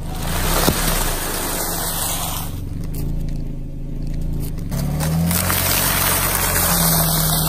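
A car tyre rolls over a plastic bag of popcorn, crushing it with a crackling, rustling crunch. Then, about five seconds in, it rolls over a row of stacked crackers, which crunch and snap. A car engine runs low and steady underneath.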